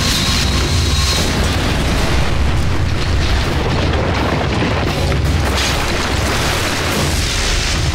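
Cartoon earthbending battle sound effects: a continuous, dense rumble of crashing rock and fire blasts, with a music score underneath.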